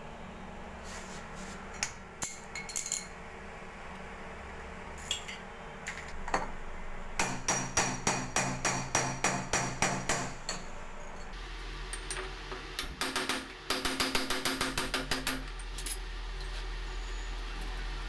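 Light metal-on-metal hammer taps on a tool set against a push flush valve's cartridge, to free a cartridge that a box spanner would not turn. A few scattered taps come first, then two quick runs of about six taps a second.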